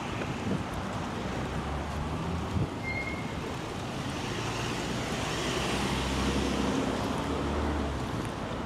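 Street traffic: the steady noise of vehicles running by, growing louder between about five and eight seconds in as one passes, with a short high-pitched tone about three seconds in.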